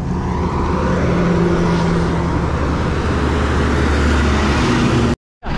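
Road traffic noise with a motor vehicle's engine running steadily. The sound cuts out abruptly for a moment near the end.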